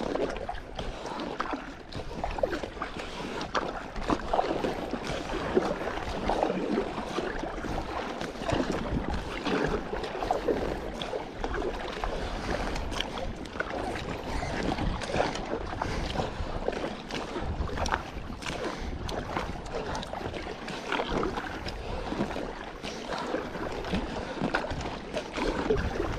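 A double-bladed kayak paddle dipping and splashing in lake water, stroke after stroke, with water sloshing around an inflatable kayak. A low wind rumble on the microphone comes and goes.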